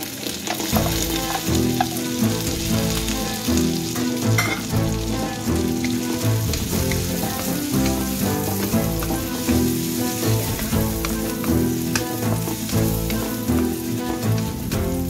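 Diced hotdog sausage sizzling in hot oil and garlic in a non-stick wok, stirred and scraped with a wooden spatula, a steady frying hiss. Background music plays underneath.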